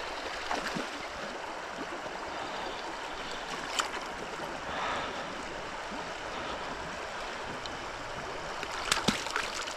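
River water running steadily, with a brief sharp sound about four seconds in and a few more near the end.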